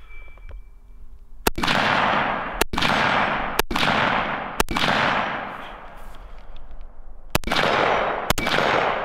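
Six shots from a BCM 11.5-inch AR-15 carbine fitted with a muzzle brake: four about a second apart, then a pause of nearly three seconds and two more a second apart. Each shot is followed by a long rolling echo that fades over about a second.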